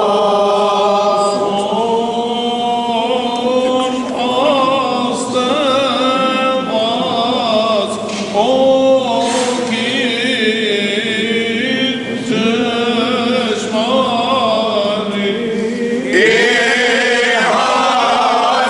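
Armenian church choir of robed deacons chanting a hymn together, with long held notes that slide slowly between pitches; it gets a little louder about two-thirds of the way through.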